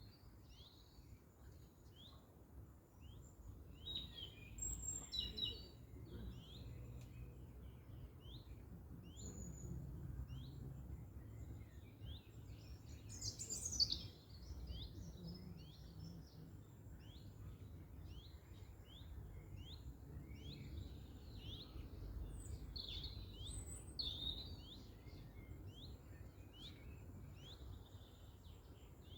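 Small songbirds chirping and singing: many short, high, quick calls in a steady chorus, with one louder burst about halfway through, over a steady low rumble.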